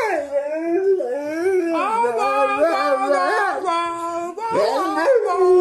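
A Rottweiler 'talking': a long run of howl-like moans and yowls sliding up and down in pitch, with a short break about four and a half seconds in.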